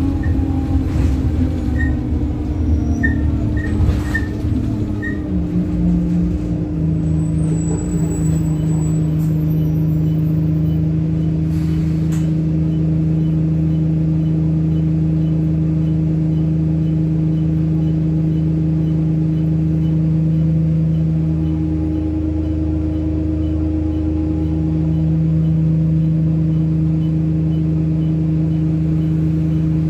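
Alexander Dennis Enviro 200 single-decker bus heard from inside the saloon, its diesel engine running down as the bus slows to a stop in the first few seconds, then idling with a steady hum. A faint regular ticking runs under the idle, and there is a single click about twelve seconds in.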